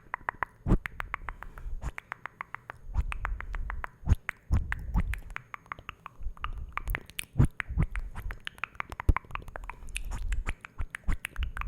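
Close-miked ASMR mouth sounds: a rapid run of wet mouth clicks and pops, several a second, with soft low rumbles in between.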